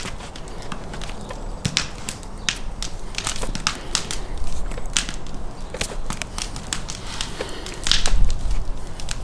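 Thin metal wire being drawn through and wrapped around a whole raw lamb carcass to truss it, giving irregular sharp clicks and scrapes along with soft handling of the meat. A brief low rumble comes about eight seconds in.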